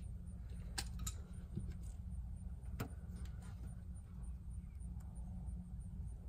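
Metal hardware being handled while a copper grounding cable is fitted: a handful of sharp metallic clicks and clinks, most of them in the first three seconds, over a steady low rumble.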